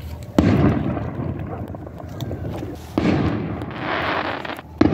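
Aerial fireworks bursting in the sky: a loud boom about half a second in, another about three seconds in followed by a fading hiss, and a third near the end.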